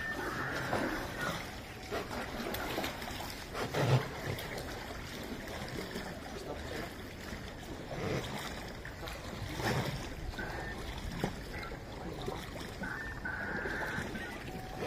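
Paddles dipping and pulling through floodwater beside an inflatable rescue raft, with water splashing and trickling; a few strokes land louder than the rest, the strongest about four seconds in.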